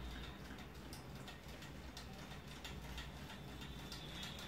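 Homemade Stirling engine built from Monster Energy cans, running over a flame: its wire crankshaft and CD flywheel turn with light, uneven ticking.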